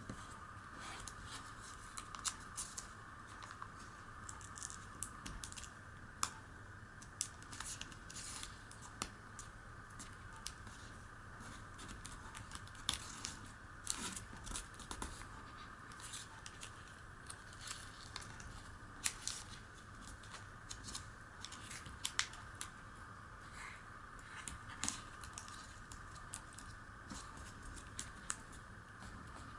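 A sheet of origami paper being folded and creased by hand, giving scattered crisp crackles and small clicks as the paper rustles and the folds are pressed flat, over a faint steady background hum.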